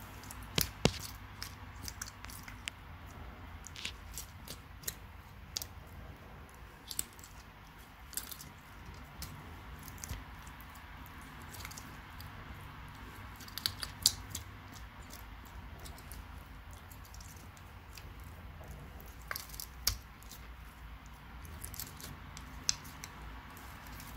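Tegu lizard biting and chewing a giant African land snail, the tough shell cracking in irregular sharp crunches and clicks, the loudest about a second in, near the middle and about four-fifths through.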